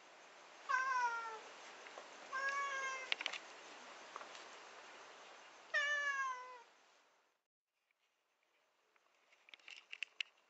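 A black-and-white cat meowing three times, each meow falling in pitch. Faint scattered clicks come near the end.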